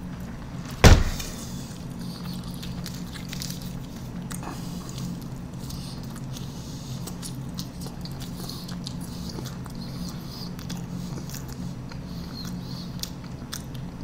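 A plastic drink cup set down on a table with one sharp knock about a second in, over a steady low hum. Faint paper-wrapper rustles and chewing follow as a burrito is eaten.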